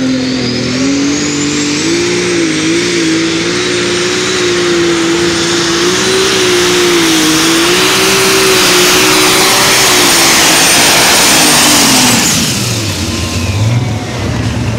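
Engine of a pulling tractor or truck under full power during a pull, with a high whine that climbs and then holds steady alongside it. About twelve seconds in, the engine is let off and the whine falls away.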